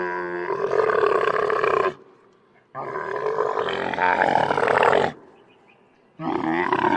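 Camel calls, three long rough grunting calls with short pauses between them.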